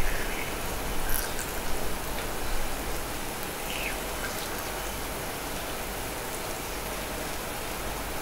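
Batter and oil sizzling steadily in the cells of a gas takoyaki pan, with a few light clicks of bamboo skewers against the plate in the first few seconds as the balls are turned.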